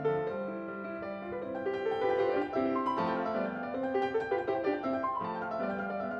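Background piano music: a steady run of quick notes over a lower line.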